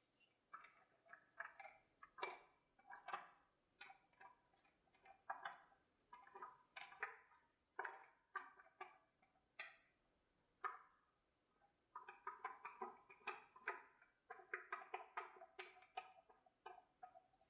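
Faint, irregular short scratches and taps of a paintbrush working glaze paint onto a plaster bas-relief, some strokes coming in quick runs.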